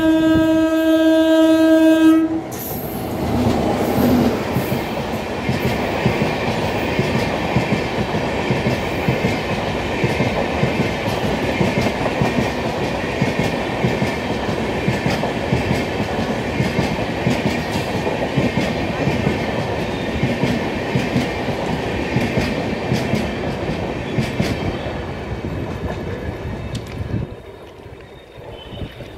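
Electric locomotive's air horn blowing one long steady note for the first two seconds. Then the locomotive and a long rake of passenger coaches pass at speed with continuous rushing noise and wheel clatter over the rail joints, fading near the end as the train draws away.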